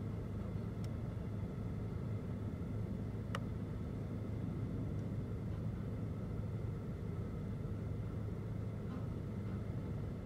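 Volvo FM refuse truck with a Heil Big Bite rear loader, its diesel engine running steadily as the rear lifter tips a wheelie bin. A single sharp knock about three seconds in.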